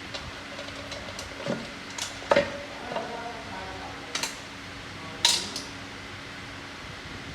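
Metal engine parts and hand tools clinking and clanking during an engine teardown: several sharp metallic knocks with short ringing, loudest a little past two seconds in and just past five seconds, over a steady hum.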